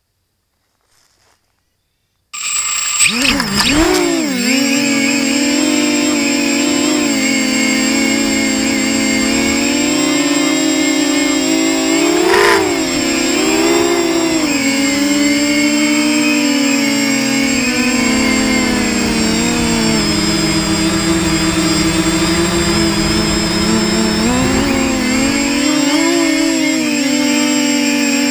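Versacopter 280 quadcopter's electric motors and propellers spinning up sharply about two seconds in and lifting off, then a steady buzzing whine, close and loud from the camera on board, that rises and falls in pitch as the throttle changes.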